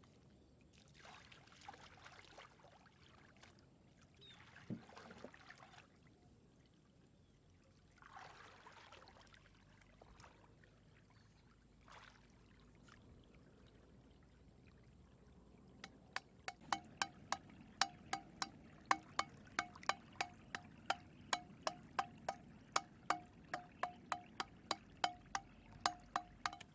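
Water splashing and trickling a few times, then a steady run of sharp clicks, about three a second, each with a short ringing note.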